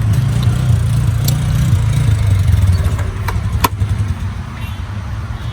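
Off-road buggy engine idling with a steady low rumble, easing slightly about three seconds in. A couple of sharp clicks come around three and a half seconds in.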